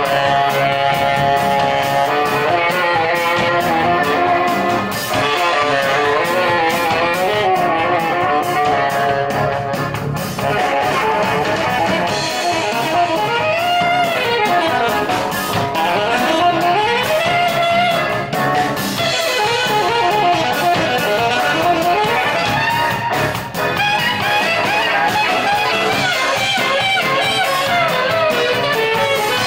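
Klezmer band playing live, with an alto saxophone soloing in a continuous melody full of slides and bends over the band's guitar and drum kit.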